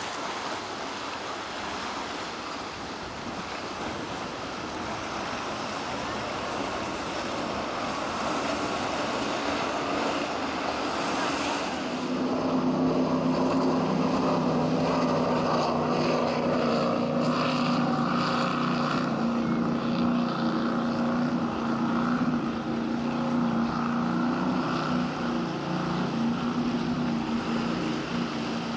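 Rush of wind and waves, then about twelve seconds in a motorboat's engines come in as a steady drone that holds over the sea noise as the boat runs by.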